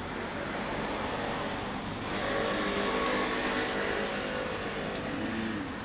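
Motorcycle engine running steadily, a little louder from about two seconds in.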